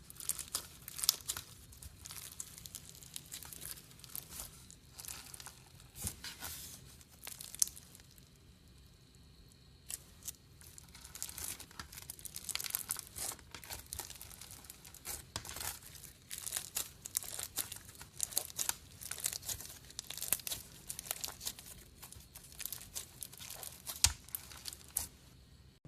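Slime being squeezed and stretched by hand, giving a dense run of crackling, crinkling pops, with a brief quieter lull about a third of the way through.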